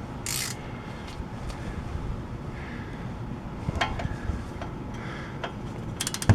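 Scattered light clicks and knocks of a torque wrench and socket being fitted to a front suspension bolt, with a quick run of clicks near the end.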